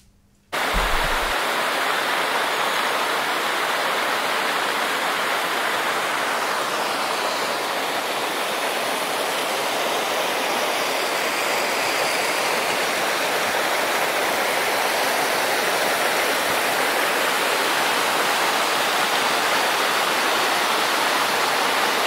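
Mountain stream rushing over rocks and small cascades: a steady, even rush of water that starts abruptly about half a second in.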